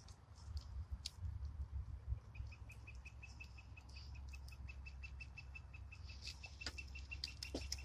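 A bird calling a long run of short identical notes at one steady pitch, about seven a second, starting about two seconds in and lasting about five seconds. Underneath is a low rumble, with a few sharp clicks near the end.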